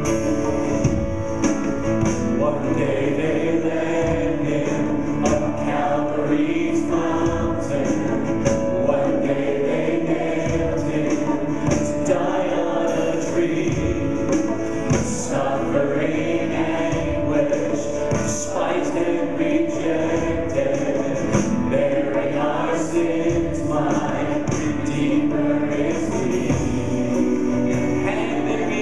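Church choir singing a gospel song with a live band of acoustic guitar, electric bass and drums.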